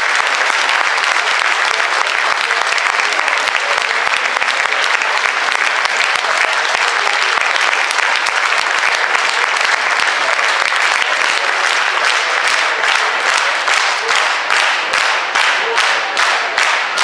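Audience applauding. About two-thirds of the way through, the clapping falls into a steady beat in unison, about two claps a second.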